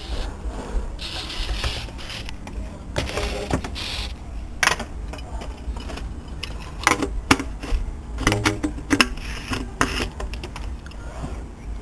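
PVC pipe parts of a homemade spud gun clicking, knocking and scraping as the end cap is twisted on and the chamber is handled. The strokes come irregularly and are densest and loudest in the second half, over a low rumble.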